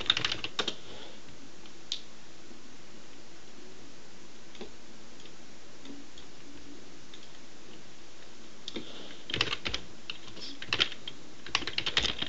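Computer keyboard typing: a short burst of key clicks at the start, a few isolated clicks, then several quick bursts of keystrokes in the last few seconds.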